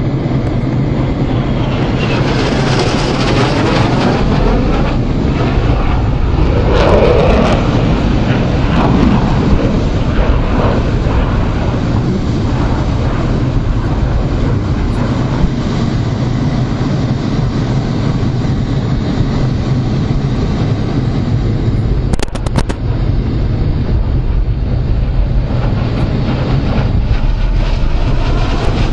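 Cockpit noise of a MiG-29 fighter in flight: the steady rush of its twin RD-33 turbofan engines and airflow, with a low steady hum underneath and a few brief swells as it manoeuvres.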